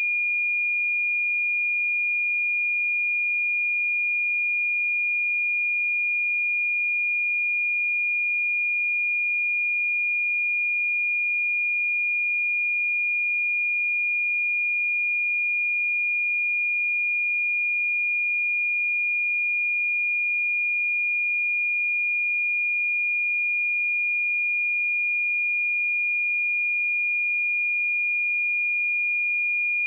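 A pure 2426 Hz sine-wave test tone, a single high-pitched note held steady at constant loudness.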